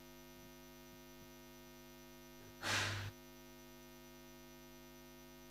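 Faint, steady electrical mains hum, with one short burst of noise about two and a half seconds in.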